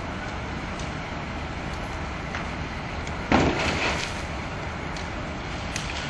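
Car on fire: a steady rush of burning with scattered sharp pops, and one louder pop-and-whoosh about three seconds in as parts of the burning car begin to burst.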